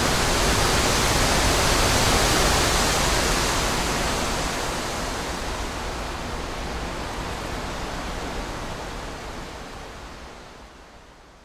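A steady, even rushing noise with no shots or clicks in it. It fades out gradually from a few seconds in, dying away almost completely by the end.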